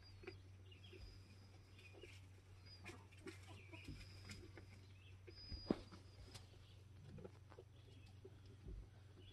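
Faint bird chirps and short high whistles over a low steady hum, with scattered light clicks and rustles and one sharper click a little past halfway.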